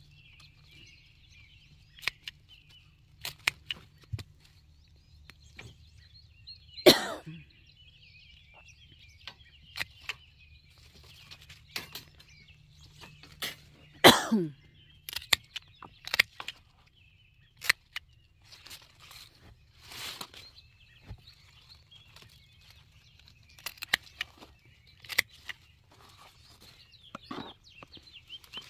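Pruning shears snipping tomato suckers and leaves: scattered sharp clicks and rustling of foliage, with two louder knocks about seven and fourteen seconds in. A steady high chirping carries on in the background.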